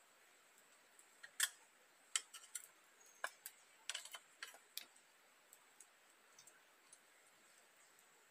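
Light clinks and taps of a metal utensil against a frying pan and pot, a dozen or so sharp clicks bunched between about one and five seconds in, then a few faint ones.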